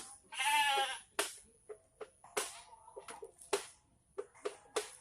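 A goat bleating once, a short wavering bleat, followed by scattered sharp clicks and knocks.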